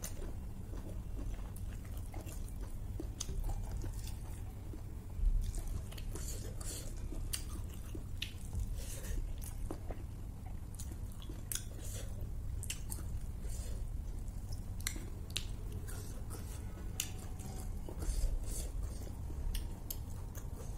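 A person chewing rice and beef curry, with frequent short sharp mouth clicks throughout. There is a louder low knock about five seconds in and another near the end.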